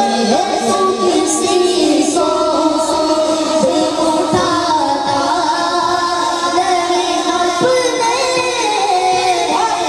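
A boy singing a naat, an Urdu devotional hymn, into a microphone, amplified through a sound system, drawing out long held notes that bend slowly in pitch.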